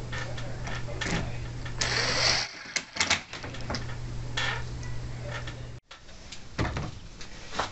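Cordless drill whirring in a short burst about two seconds in as it drives a roofing screw into a corrugated PVC roof panel, followed by scattered clicks and knocks of handling on the panel. A steady low hum lies underneath.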